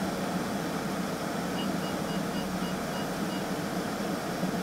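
The air-conditioning fan of an Audi S5 blowing at full, a steady rush inside the car cabin. About a second and a half in, a run of quick high electronic beeps, about four a second, sounds for around two seconds.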